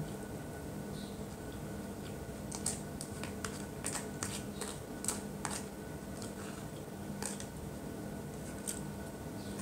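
A plastic spoon scraping and tapping the inside of a small plastic cup, giving a run of sharp light clicks that are densest from about two and a half to five and a half seconds in, with a few more near the end.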